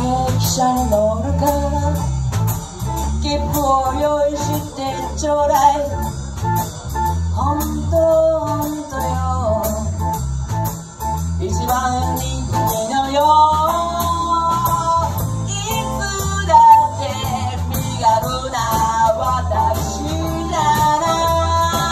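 A live band playing a song: a singer's voice over guitar, with a steady beat and bass underneath.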